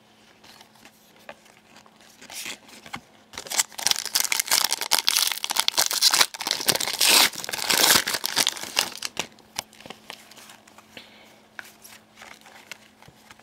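A Panini Contenders hockey card pack's wrapper being torn open and crinkled by hand. Light rustles and ticks at first, then loud crackling and tearing from about three and a half seconds in for several seconds, dying down to lighter handling near the end.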